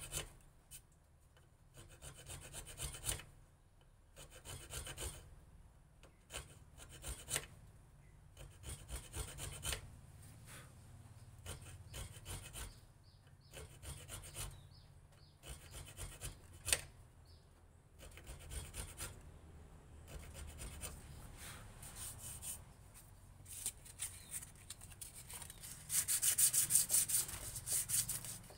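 Point of a small knife scraping across a wooden knife handle, scoring an anti-slip grip pattern into it: groups of short scratchy strokes with brief pauses between them, and a faster, louder run of strokes near the end.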